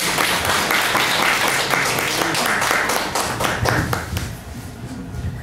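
Audience applauding, the clapping fading out about four seconds in.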